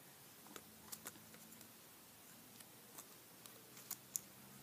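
Near silence with about ten faint, scattered clicks and taps of handling noise, the sharpest about four seconds in, as a plush toy is moved about in a hand holding the phone.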